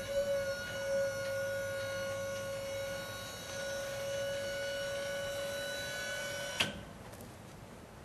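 Electric lift motor raising a microwave heating head off a freshly heated asphalt patch: a steady high whine that stops with a click near the end.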